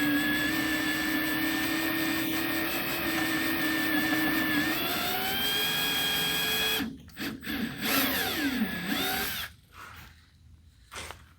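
Hand-held power drill boring into a broken steel bolt, drilling a hole for a screw extractor. The motor whine holds steady, rises in pitch about five seconds in, and cuts off near seven seconds, followed by a few short bursts of the trigger and a spin-down.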